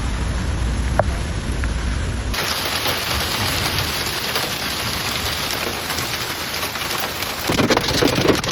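Heavy rain pouring down in a steady hiss. For the first couple of seconds it comes with a low rumble; then it switches abruptly to a brighter, hissier downpour.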